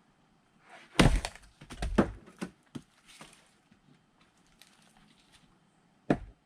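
Firewood being split with an axe: a hard strike about a second in, then a second or so of wood cracking apart with a few smaller knocks after it, and another single sharp strike near the end.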